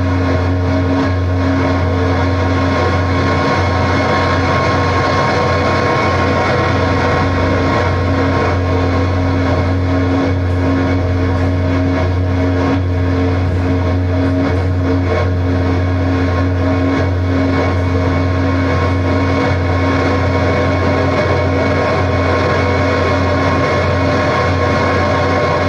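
Amplified noise music played live: a dense, unbroken drone of a heavy low hum under several held tones and hiss, at a constant loudness.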